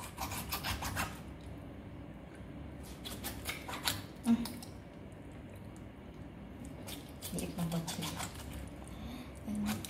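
Kitchen scissors snipping through raw chicken: three short runs of quick snips and clicks, each about a second long, a few seconds apart.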